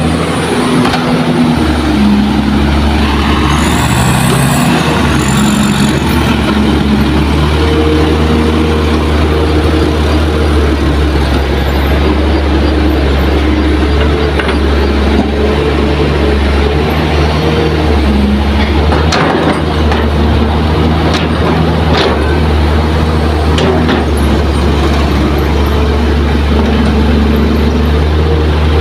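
Diesel engines of a loaded dump truck and an excavator running, the engine pitch stepping up and down as the truck pulls away. Two short high squeals come a few seconds in, and a few sharp knocks about two-thirds of the way through.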